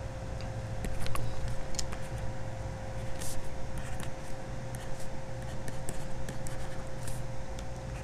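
Faint scattered taps and scratches of a stylus writing on a screen, over a steady background hum with a thin constant tone.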